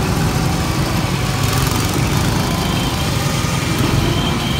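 Small go-kart engine running steadily with a low drone, heard from on board the moving kart.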